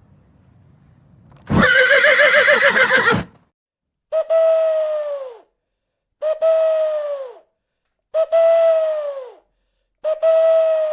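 A horse whinnying once, a loud call with a quavering pitch about 1.5 seconds in. Four identical shorter calls follow at even spacing, each a steady tone that drops off at the end.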